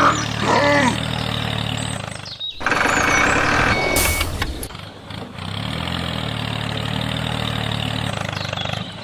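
Engine running steadily at idle, broken by abrupt cuts, with a louder, hissier stretch about three seconds in.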